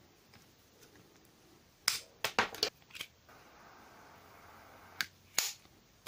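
Several sharp clicks and knocks of hand tools and cable being handled on a wooden tabletop, bunched about two seconds in and again near the end.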